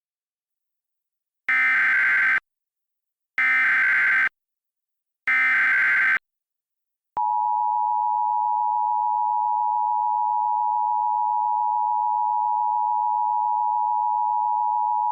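Emergency Alert System SAME header: three identical bursts of rapid digital data warble, each just under a second with about a second of silence between them. About seven seconds in, the EAS two-tone attention signal starts and holds one steady, piercing chord.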